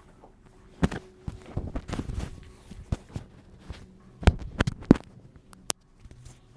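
Irregular sharp knocks and clicks from hands-on chiropractic work on a patient: handling on the treatment table and adjustment cracks. They come about a second in, in a cluster around two seconds, again in a cluster between four and five seconds in, and as a single sharp click near the end.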